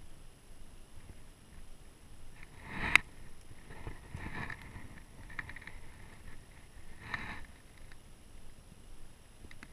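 Handling noises in a small fishing boat: one sharp click about three seconds in, the loudest sound, then a few soft scuffs and rustles.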